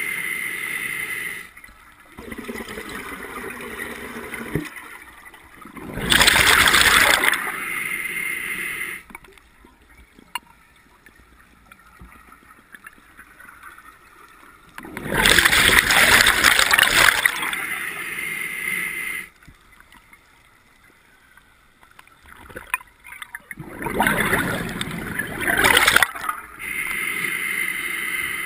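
Scuba diver breathing through a regulator underwater: three loud rushes of exhaled bubbles about nine seconds apart, with quieter breathing sounds in between.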